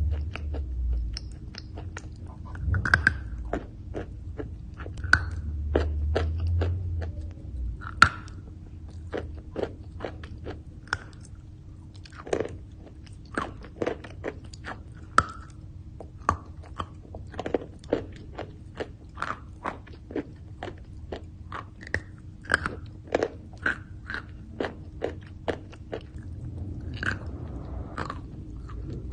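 Chalk being bitten and chewed up close: sharp, irregular crunches, more frequent in the second half, with softer grinding between them.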